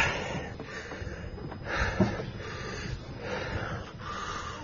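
Heavy, out-of-breath breathing of a person climbing steep wooden stairs, a puff about every second and a half, with a couple of thumps of footsteps on the wooden steps.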